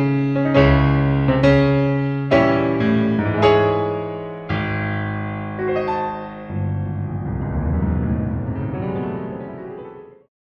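Background piano music: a string of slow struck chords, the last one held and fading until the track stops shortly before the end.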